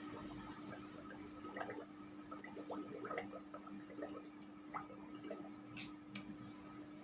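Faint, scattered wet clicks and drips of water from a person drinking, over a steady low hum.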